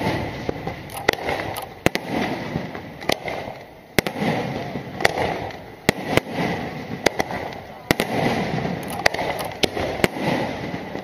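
Aerial fireworks shells bursting in a rapid, irregular series of sharp bangs, about two a second, with a continuous rumbling crackle between them.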